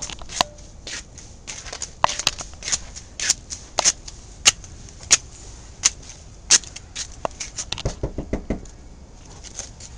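Footsteps on hard steps, a sharp step about every half to two-thirds of a second. About eight seconds in, a quick run of about six heavy knocks, banging on a door.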